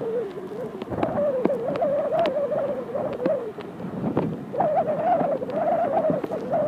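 Turbofan engines of a small business jet taxiing, heard as a steady wavering whine that eases briefly midway, with wind buffeting the microphone.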